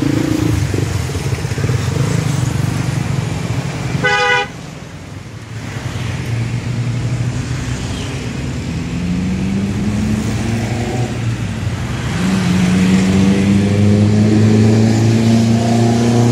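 Road traffic: a short car horn toot about four seconds in, then vehicle engines running with a low, steady drone that grows louder in the second half.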